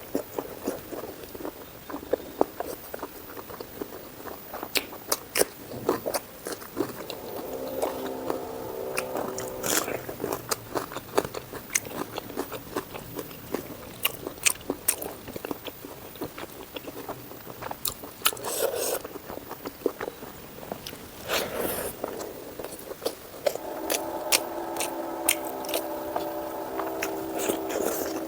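Close-miked eating: biting and chewing with many sharp, crisp crunches and wet mouth clicks.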